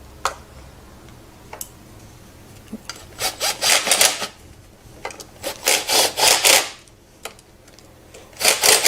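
Scraping, rasping handling of metal parts while a scooter carburetor is fitted onto its intake: a couple of sharp clicks, then three bursts of rasping about a second long each.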